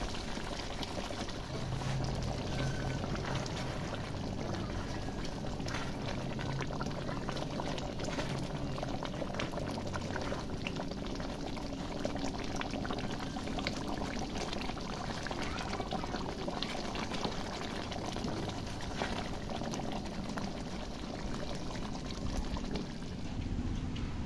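Chicken curry gravy boiling in a cooking pot, bubbling and popping steadily.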